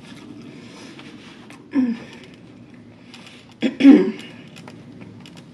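Two short vocal noises from a woman pausing in eating a burger: a brief one about two seconds in and a louder, slightly longer one about four seconds in.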